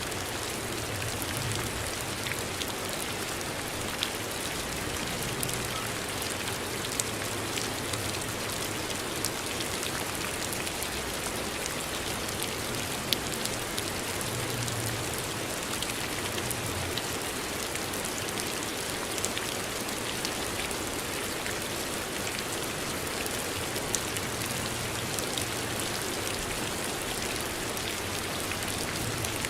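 Steady rain falling on a surface, an even hiss with scattered louder drop ticks.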